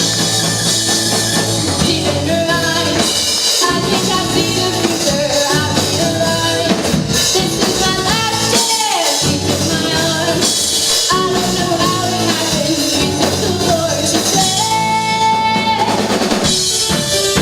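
Live band playing a song at full level, drum kit with snare and bass drum driving the beat under guitars and a gliding melody line.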